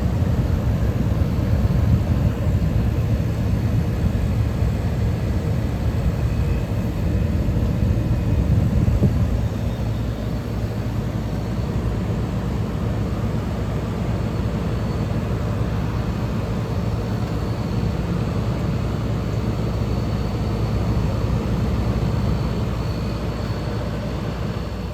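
1977 General Electric Superthrust 10,500 BTU window air conditioner running, its fan blowing air and its rotary compressor giving a steady low hum. A little louder for about the first ten seconds.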